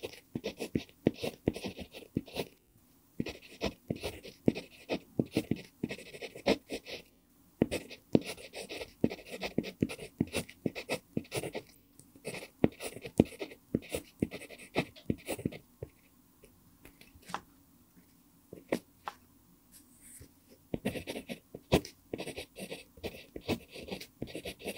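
Pentel PG5 mechanical pencil with an mpingo wood barrel writing Korean characters on lined paper: quick scratchy lead strokes and taps, with brief pauses between characters. The strokes thin out for a few seconds about two-thirds of the way through, then pick up again.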